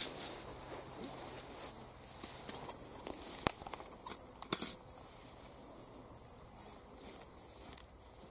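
Tall grass rustling as a person moves through it and bends to work low down, with a sharp knock at the start, another about three and a half seconds in and a short cluster of knocks a second later.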